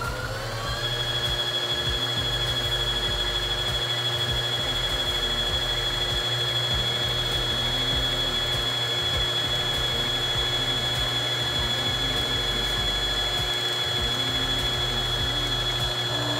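Sewing machine motor driving the bobbin winder, winding thread onto the bobbin. It speeds up with a rising whine in the first second, then runs as a steady high whine at full speed.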